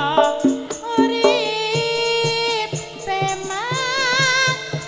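A sinden, a Javanese female vocalist, singing long, wavering, ornamented notes through a microphone over a gamelan ensemble, with metallophone strikes and low drum strokes beneath. Her voice slides upward about three and a half seconds in.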